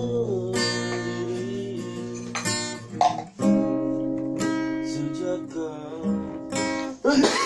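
Acoustic guitar strummed in slow chords, with a voice singing held notes over it.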